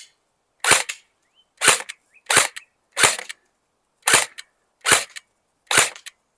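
Electric airsoft AK-47 (Game Face Insurgent AEG) firing on semi-automatic: seven single sharp shots, roughly one a second, at slightly uneven intervals.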